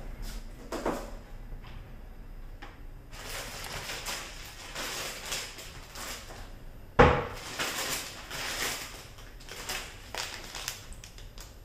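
A clear plastic bag of dried mushrooms rustling and crinkling as it is handled, with a sharp knock from a wooden kitchen cupboard door shutting about seven seconds in.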